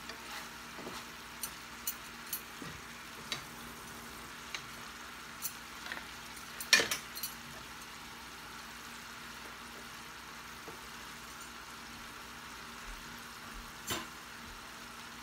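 Teriyaki chicken thighs simmering in sauce in a skillet: a steady gentle sizzle with scattered small pops and clicks. A sharper click comes about seven seconds in and another near the end.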